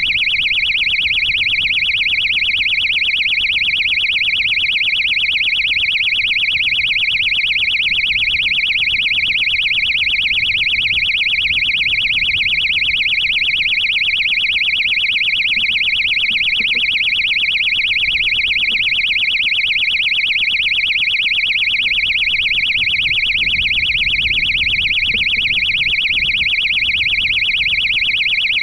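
Piezo buzzer on the landed rocket's electronics sounding a continuous high-pitched tone with a fast flutter, as a recovery locator beeper does after touchdown.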